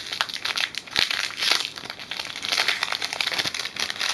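Ink cartridge's sealed wrapper being torn open at its tear notch and crinkled as the cartridge is worked out of it: a dense, irregular crackle, with one sharp crack about a second in.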